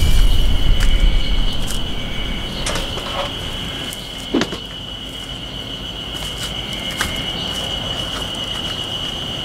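Steady high-pitched buzz of insects, with a heavy low rumble of wind on the microphone that is loudest in the first couple of seconds and then eases. A few short knocks, the clearest about halfway through.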